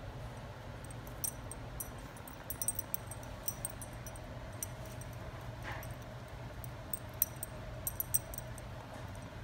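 A small dog rummaging in a plush bed, nosing and pawing at a plush toy and blanket as it searches for a hidden treat: scattered light clicks and rustling, with a brief soft whine a little past halfway.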